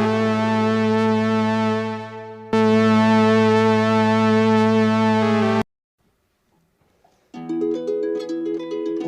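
Two separate instrument samples. First, a sustained electronic-sounding note rich in overtones is held, fades out, sounds again about two and a half seconds in, and cuts off abruptly. After about a second and a half of near silence, plucked harp notes begin.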